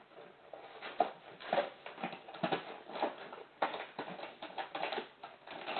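Irregular light taps, clicks and rustles from a person working with things on a kitchen table, heard through a home security camera's microphone.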